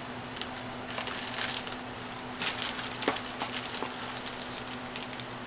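Clear plastic bags of model-kit sprues crinkling and rustling in short irregular bursts as they are handled and shifted, over a faint steady hum.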